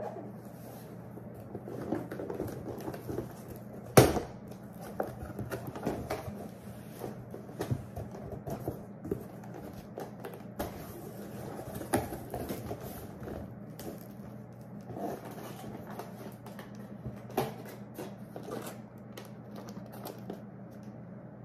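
Cardboard box being opened and handled by hand: flaps rustling and scraping, with scattered taps and knocks, the sharpest about four seconds in, over a steady low hum. Near the end a clear plastic clamshell container is lifted out of the box.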